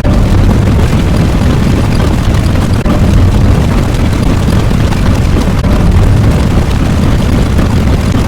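A loud, continuous low rumble sound effect of the explosion or heavy-engine kind, with a brief dip about three seconds in.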